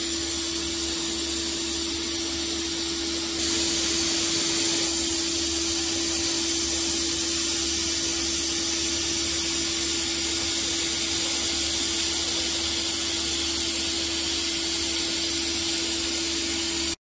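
Steady hiss with a constant hum from a high-speed machining center running inside its enclosure; the hiss steps up a little about three seconds in.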